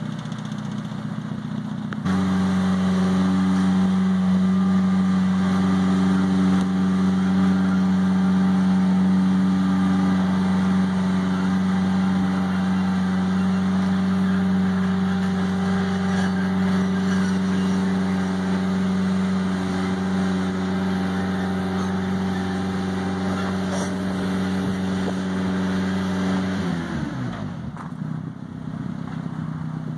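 Rough-terrain scissor lift's engine and hydraulic pump running at a steady raised speed as the platform is lifted, coming up about two seconds in and holding one steady pitch. Near the end the pitch falls and the drone dies away as lifting stops.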